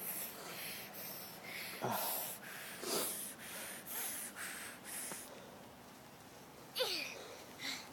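Footsteps crunching in snow, about two to three a second, with breathing, the steps stopping about five seconds in. A short falling vocal sound near the end.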